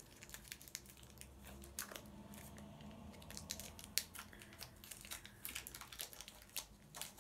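A chewy sweet's wrapper crinkling and tearing as it is picked and peeled open by hand: a faint, irregular string of small crackles and snaps.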